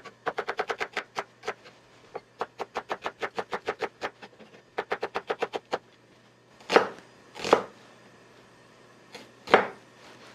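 Kitchen knife slicing an onion on a wooden cutting board: quick, even runs of knife strokes, several a second, in three bursts. A few louder, longer strokes follow in the second half.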